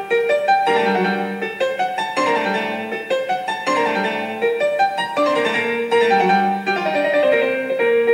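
Background piano music, a run of sustained notes moving step by step.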